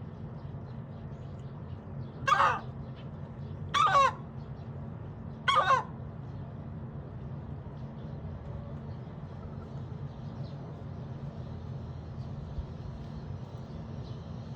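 Hen making three short, loud, sharp sounds about a second and a half apart, over a steady low hum.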